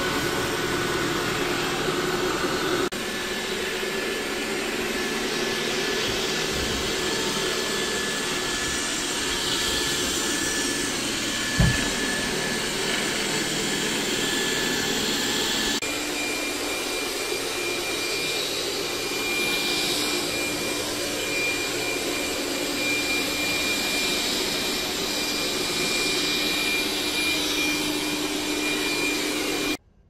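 Xiaomi Robot Vacuum X10+ robot vacuum running on a wooden floor: a steady motor hiss with a thin whine on top. The whine steps up in pitch about 3 seconds in and again about halfway, when it is in Turbo suction mode. There is one short thump about 12 seconds in, and the sound cuts off just before the end.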